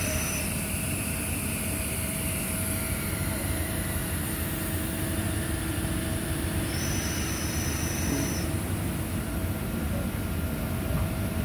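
Steady machinery drone of a working drilling rig floor, with a constant hum in it. A thin high whine comes in for a second or two past the middle and stops.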